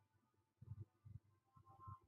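Near silence, with only faint, indistinct low sounds.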